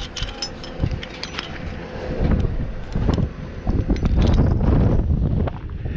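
Strong wind buffeting the microphone in gusts, heaviest near the end, with light metallic clinks and jingles early on from tower hardware or climbing gear.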